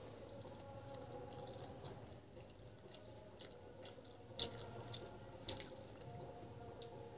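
Fingers mixing and squeezing rice with dal on a plastic plate, making wet, sticky squishing sounds. Two sharp clicks come about four and a half and five and a half seconds in, over a faint steady hum.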